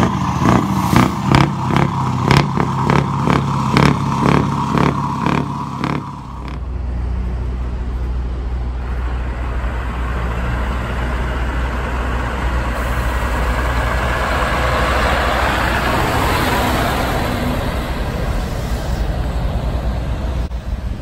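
A short rhythmic intro beat. About six seconds in it gives way to the low, steady rumble of a Scania 5-series V8 truck with twin exhaust stacks, pulling a trailer slowly past at low revs. The sound builds as the truck comes close, then eases off as it moves away.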